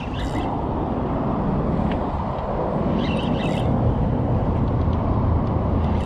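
Steady low rumble of wind on the microphone, with a spinning reel rasping briefly twice, near the start and about three seconds in, while a red drum is played on a bent rod.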